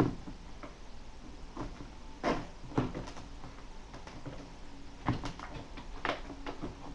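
Packaging of a pack of Nerf Mega foam darts being torn and pried open by hand: a series of sharp clicks and snaps at uneven intervals.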